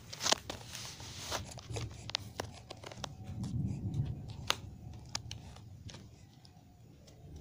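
A baby handling and bumping a phone held at close range: scattered clicks, taps and rubbing on the phone, with a soft low sound from the baby about three and a half seconds in.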